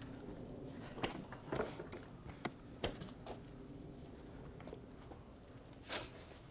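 Leather bullwhip being handled and swung overhead: a few faint clicks and rustles, then a short swish through the air about six seconds in.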